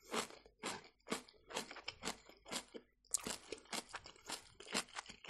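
Close-up chewing of a mouthful of crunchy sauerkraut, one crisp crunch about twice a second in a steady rhythm.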